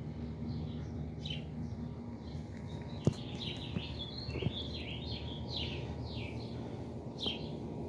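Songbirds chirping in the background, a busy run of short falling notes, over a steady low hum. A single sharp knock about three seconds in.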